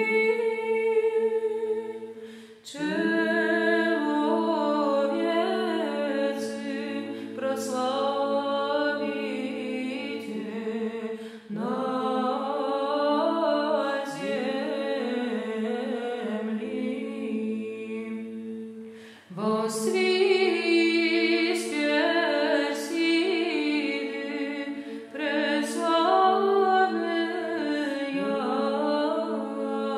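A women's choir of nuns singing Byzantine chant a cappella in Church Slavonic, with a low drone note (the ison) held steady beneath the moving melody. The chant runs in long phrases broken by short breaths about every six to eight seconds.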